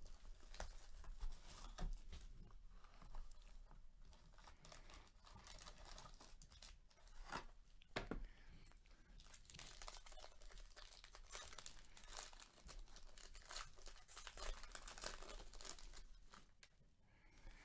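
Faint crinkling and tearing of plastic shrink wrap as it is stripped off a trading-card box, then a foil card pack crinkling as it is torn open.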